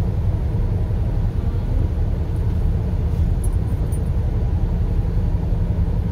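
Steady low rumble of road and wind noise inside a car driving at highway speed in strong wind.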